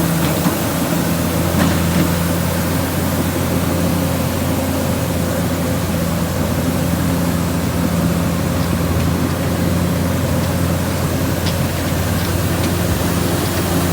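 Komatsu D68ESS bulldozer's diesel engine running steadily under work, a continuous low drone with a few faint clicks over it.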